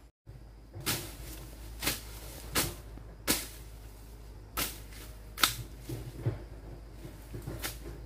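A series of sharp knocks or blows, irregularly spaced, roughly one a second, over a low steady background hum.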